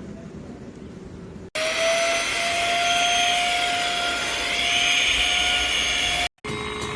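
Xiaomi LPMY-017 PRO cordless dust mite vacuum cleaner running: a loud steady motor whine with an airy hiss. It starts abruptly about a second and a half in and stops near the end. After a brief silence a lower-pitched motor hum starts.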